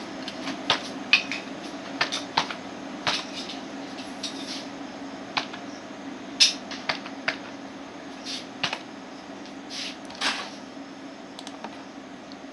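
Computer keyboard keys tapped one by one in an irregular run of sharp clicks as a short password is typed, over a steady low hum.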